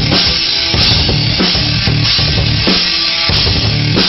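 Music with a drum kit playing a steady beat, a hit about every two-thirds of a second.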